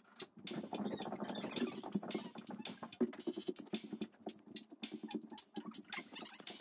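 Background music with a steady, fast percussive beat.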